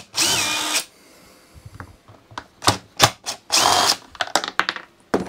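Cordless DeWalt impact driver unscrewing the screws of a two-stroke hedge trimmer's pull-starter cover: two short runs of under a second each, the motor whine rising and then holding. Sharp clicks and knocks of the tool and parts being handled come in between.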